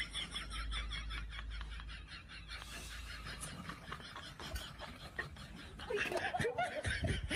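A person laughing hard in quick, high-pitched repeated bursts over a low steady hum. Near the end the laughter turns into a voice.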